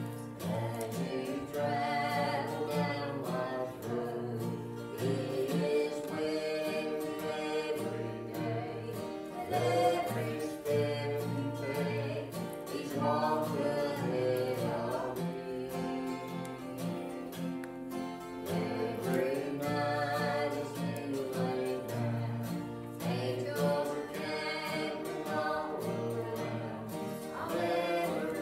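Several voices singing a gospel hymn together over instrumental accompaniment with a steady, rhythmic bass line.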